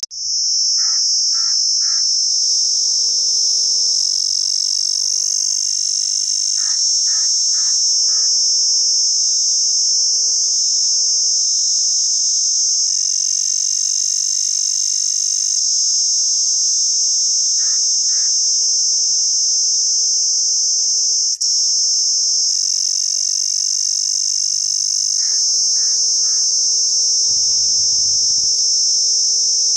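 Cicada singing: a loud, steady, high-pitched buzz that drops out for an instant about two-thirds of the way through. Fainter short chirps in groups of three or four come now and then.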